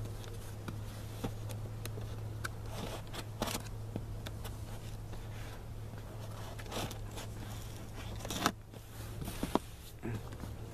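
Scissors cutting and scraping at a cardboard box, with scattered sharp snips and crackles of cardboard, the loudest about eight and a half seconds in. A steady low hum runs underneath.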